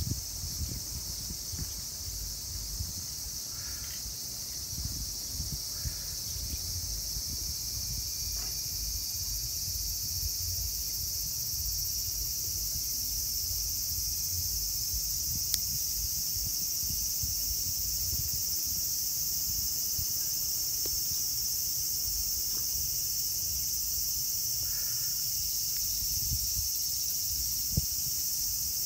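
Insect chorus buzzing steadily: a continuous high-pitched drone with a low rumble underneath and a few faint clicks.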